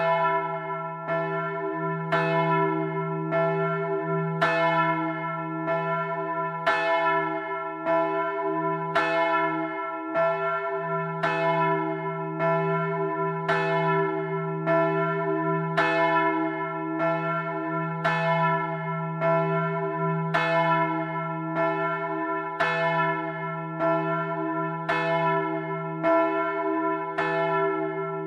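Bronze church bells cast by the Otto foundry in 1951, swung by an electric ringing system and heard from close up in the belfry. Clapper strikes come steadily about one and a half times a second over a continuous ringing hum.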